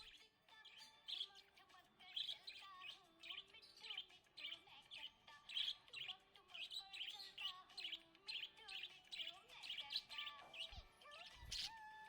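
Budgerigar chirping and twittering in a rapid, continuous run of short high chirps, over faint background music.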